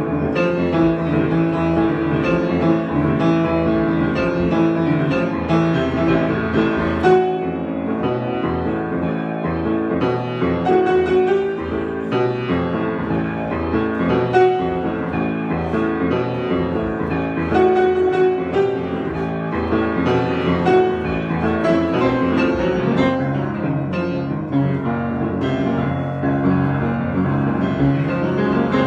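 Piano improvisation, played without pause, with chords and runs of many notes sounding together.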